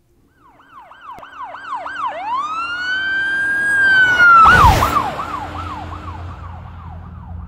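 Police car siren passing by: quick rising-and-falling yelps, then one long wail that grows louder, a loud rush about four and a half seconds in where the pitch drops sharply as it goes past, then fainter yelping as it moves away.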